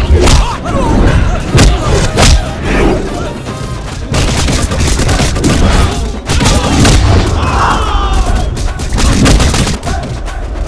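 Action-film fight soundtrack: a rapid run of loud punch and impact hits, thickest in the first couple of seconds, over dramatic background music.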